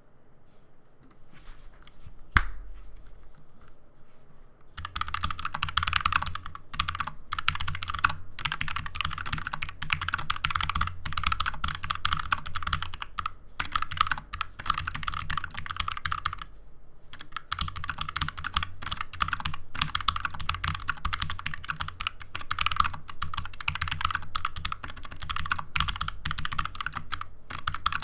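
Stock Fnatic Streak 65 low-profile mechanical keyboard typed on at speed after a year of daily use: a fast, continuous clatter of keystrokes that starts about five seconds in and stops briefly a little past the middle. Before the typing there is one sharp knock.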